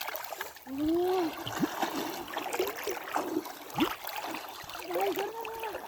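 Water splashing and sloshing in shallow pond water, with scattered short splashes and trickles. There are brief voice calls about a second in and again near the end.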